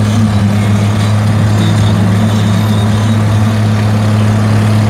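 A vehicle's engine runs with a steady low hum and road noise, heard from inside the cabin.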